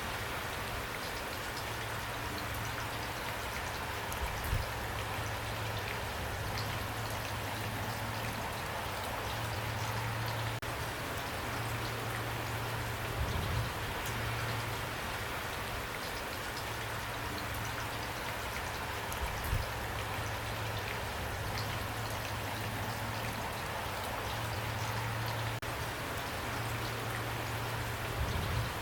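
Steady rain falling, drops striking a surface, with a few brief louder low thuds scattered through it.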